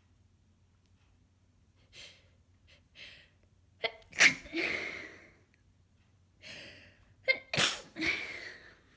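A woman with a congested head cold sneezing twice, about three and a half seconds apart, each sneeze led by short gasping breaths in.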